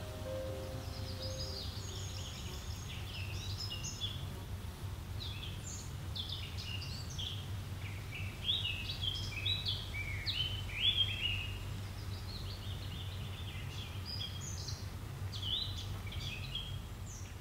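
Several small birds chirping and singing in quick, short calls over a steady low hum of outdoor ambience.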